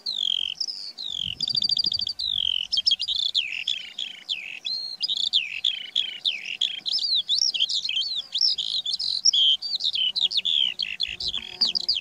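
Eurasian skylark singing: one long, unbroken stream of fast, high warbling notes and trills.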